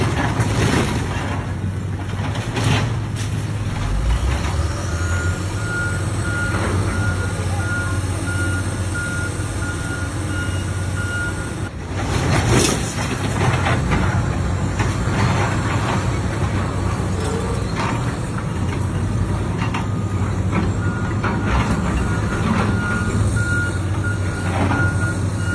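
Heavy demolition machinery running with a steady low engine rumble, its reversing alarm beeping in a regular series for several seconds at a time. About halfway through there is a loud crash.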